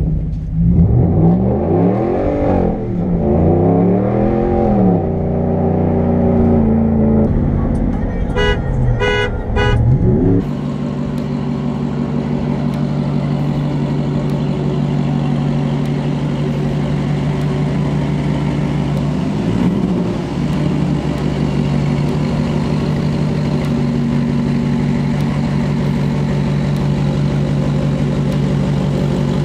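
Pickup truck engine revving up and down several times, with three short toots about eight to ten seconds in. After a sudden change, a pickup's engine idling steadily, with a brief blip of the throttle about twenty seconds in.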